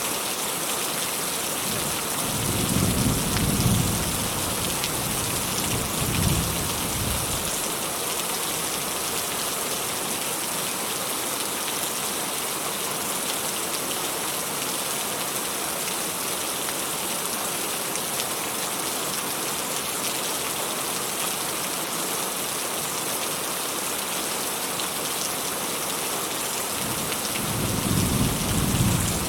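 Steady rain with distant thunder rumbling low about three seconds in, again around six seconds, and once more near the end.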